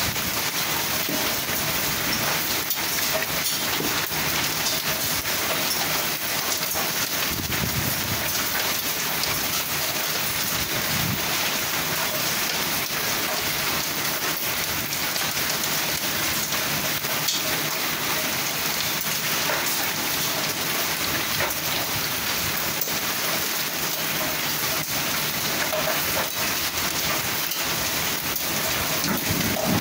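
Heavy rain mixed with hail pouring down steadily: a dense hiss of rain with many sharp ticks of hailstones striking surfaces throughout.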